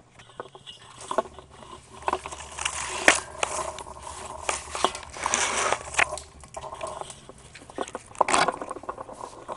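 Footsteps crunching and scraping through dry leaves and wood-chip mulch, an irregular crackle with a few louder crunches about three seconds in and again near the end.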